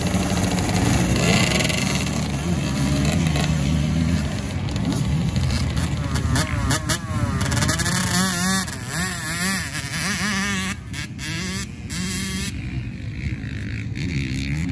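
Small junior dirt bike engines, among them a Yamaha YZ65 two-stroke, running at a start line and revved repeatedly, the pitch climbing and falling several times.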